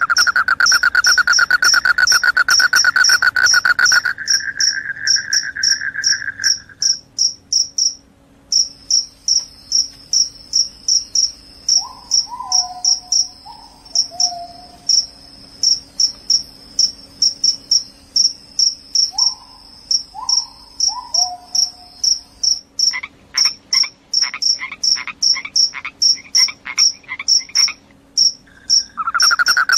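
Crickets chirping: a high, regular chirp about twice a second throughout, with a lower continuous trill from another cricket over the first several seconds and a pulsed trill near the end. Twice in the middle comes a short cluster of brief falling calls from some other animal.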